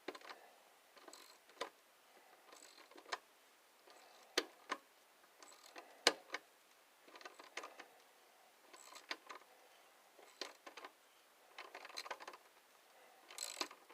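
Hand tools working a stiff bolt on a lawn tractor: irregular sharp metal clicks and short ratcheting, scraping bursts from a socket wrench.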